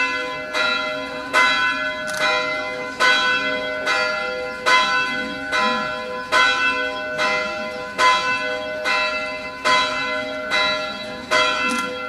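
Church bell ringing, its strikes coming evenly about once a second, each one ringing on into the next.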